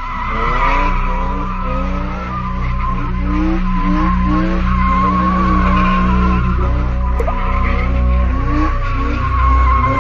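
Dacia 1310 drifting in circles: its rear tyres squeal steadily as they spin and slide, with the engine running hard underneath.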